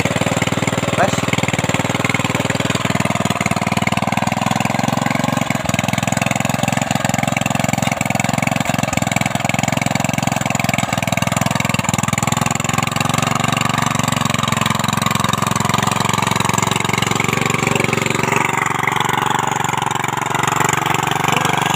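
Small single-cylinder engine of a mini rotary cultivator running steadily while its tines churn the ground. The engine is smoking heavily, which the owners put down to worn, loose piston rings.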